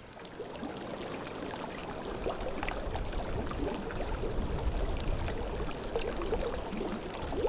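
Running water, fading in during the first second and growing a little louder toward the middle.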